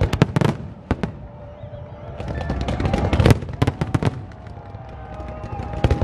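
Aerial fireworks shells bursting: a rapid run of sharp bangs and crackles, coming thickest about halfway through.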